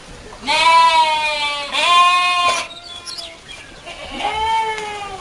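Goat kids bleating: three long, high-pitched calls, two back to back near the start and a third about four seconds in.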